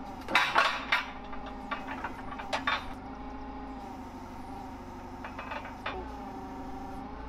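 Metal parts of a kiddie ride's tower top clanking and clinking together as they are worked loose, a quick cluster of clanks in the first second and another about two and a half seconds in, with lighter knocks later. Under them runs the steady drone of an idling forklift engine.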